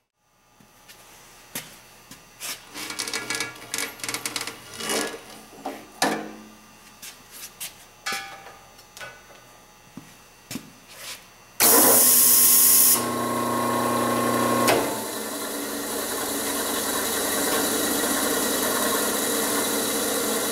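Clicks and scrapes of hands working on the compressor, then, about twelve seconds in, a sudden loud burst as the 240-volt, 5 hp single-phase capacitor-start, capacitor-run electric motor switches on. It comes up to speed and runs steadily with the belt off, sounding normal with nothing odd in it.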